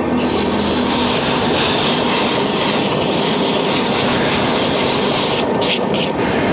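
A metal lathe running while emery cloth is pressed against the spinning taper to polish it: a steady abrasive hiss over the machine's hum. The hiss drops out briefly two or three times about five and a half seconds in, as the cloth lifts off.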